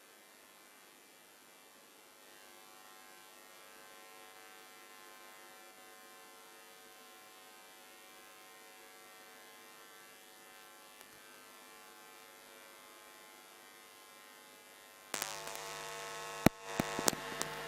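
Faint, steady electrical hum and buzz from a PA system. About fifteen seconds in, loud live music cuts in abruptly, with a few sharp knocks.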